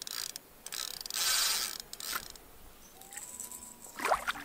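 Spinning reel being cranked in short bursts, its gears whirring as a hooked fish is reeled in. A brief splash from the fish at the surface near the end.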